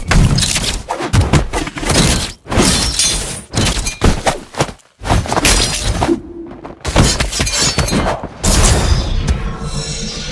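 Added fight sound effects: a rapid run of heavy impacts and crashing, breaking sounds, with a brief break about five seconds in, over music.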